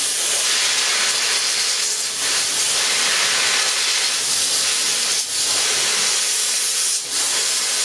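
Handheld plasma cutter cutting 3 mm steel plate, a steady hiss of air and arc with a few brief dips. It is starved of air at only 50 PSI, so it burns through the steel rather than cutting it cleanly, and the tip is not being cooled and is burning out.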